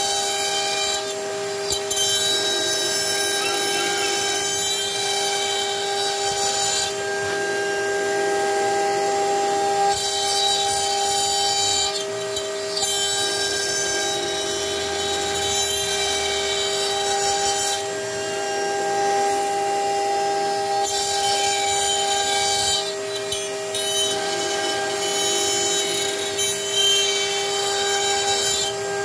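CNC router spindle running with a steady whine as its bit cuts wood, with a rougher cutting noise that rises and falls every few seconds as the bit moves through the cut. A vacuum hose held at the bit draws in the chips.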